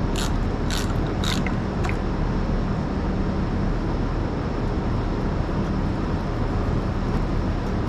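A few sharp metallic clicks from a ratchet wrench in the first second and a half as the carburetor fuel bowl is loosened, over a steady mechanical hum that runs throughout.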